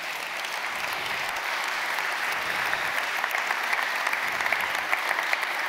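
Audience applauding: many hands clapping in a steady patter that swells slightly.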